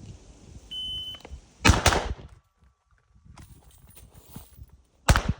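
Shot-timer start beep, then two quick rifle shots from an AR about a quarter second apart. About three seconds later comes a single pistol shot. This is an AR-to-pistol transition drill timed at 4.39 seconds from beep to last shot.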